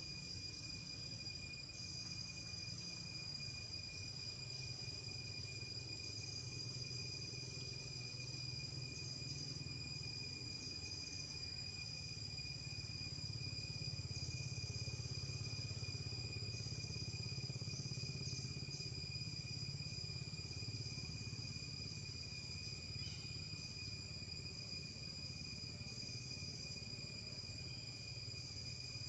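Steady insect chorus in the forest: a constant high-pitched drone that pulses slightly in its upper part, over a low steady rumble.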